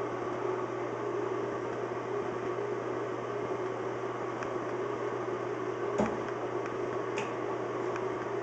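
Steady mechanical hum and hiss in a small tiled room, with a light click about six seconds in and another about a second later.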